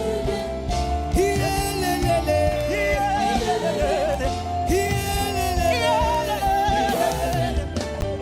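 Live gospel music: singers holding and bending long notes over a band with a steady low bass.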